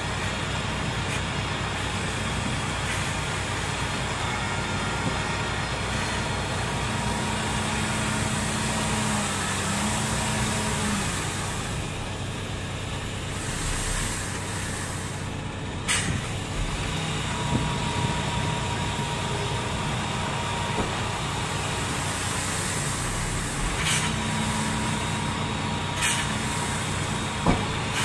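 Truck tractor unit's diesel engine running steadily while the tipper trailer's body is raised to unload, with a few short sharp sounds in the second half.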